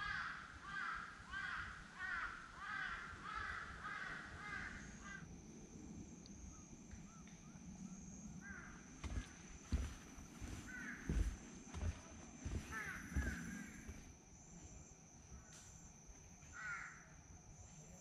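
Crows cawing in a rapid run of calls, about two a second, for roughly the first five seconds, then scattered single caws. A thin steady high tone sets in about five seconds in, and a few dull knocks come around the middle.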